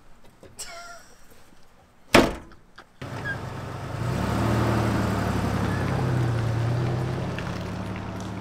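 A vehicle door shuts with a single thunk about two seconds in. About a second later a vehicle's engine and road noise start suddenly: a steady low hum that grows a little louder a second on.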